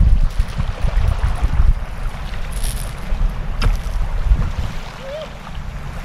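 Strong wind buffeting the microphone, a rough low rumble that rises and falls and eases a little about five seconds in, with a brief sharp click about three and a half seconds in.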